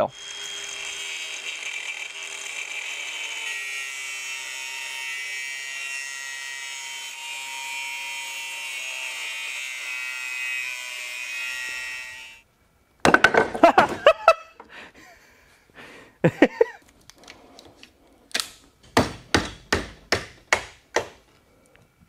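Angle grinder cutting through the welds on a microwave oven transformer's laminated steel core, running steadily for about twelve seconds and then stopping suddenly. Then scattered metal knocks and a run of about eight hammer blows as the core is knocked apart to get the secondary coil out.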